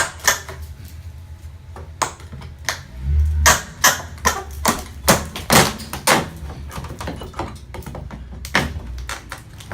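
Sharp, irregular knocks of a hammer and pry bar working on wooden 1x2 trim boards as they are pried off the fascia, with a quick run of about half a dozen blows a few seconds in.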